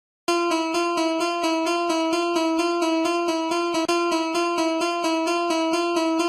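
Japanese level-crossing alarm ringing: a bell-like tone struck over and over at one unchanging pitch, starting a moment in.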